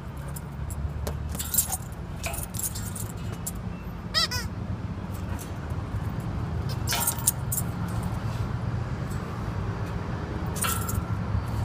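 Steady low outdoor rumble with scattered rustling and clicking handling noises, and one short, high squeak about four seconds in.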